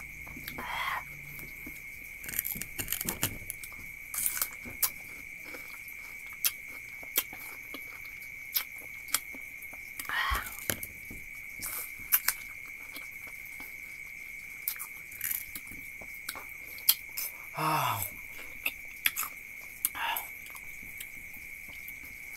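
Biting into and chewing crisp, juicy belimbing wuluh (bilimbi) fruit, heard as many short, sharp crunches and wet mouth clicks. A few brief hums from the eater, one sliding down in pitch near the end, react to the fruit's sourness. A steady high-pitched whine runs underneath throughout.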